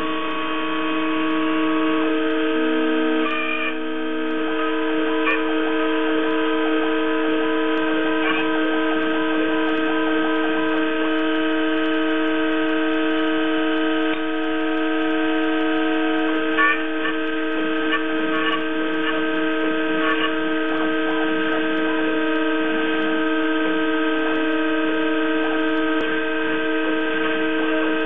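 Roland JWX-30 wax milling machine roughing a wax ring on its rotary axis. A steady high spindle whine runs throughout, with motor tones that shift and step in pitch as the axes move, and a few faint ticks.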